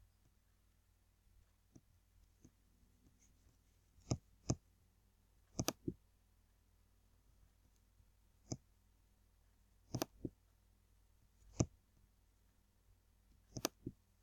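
Computer mouse button clicks: a series of sharp single and paired clicks, starting about four seconds in and coming every second or two to near the end.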